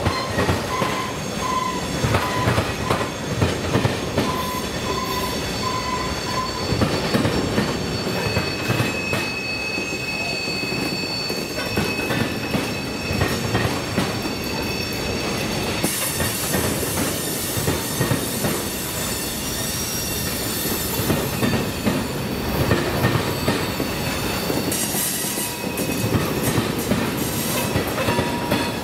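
Cars of a slow CSX freight train rolling over a track crossing, their wheels clacking over the rail joints in an irregular stream of knocks. Thin steady wheel squeals come and go: a lower one in the first several seconds, then a higher one a little later.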